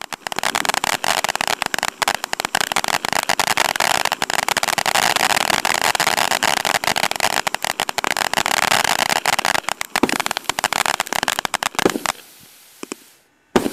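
A 1.4G consumer fish fountain firework spraying sparks: a dense, continuous crackle over a hiss that dies away about twelve seconds in. A few louder pops come near the end.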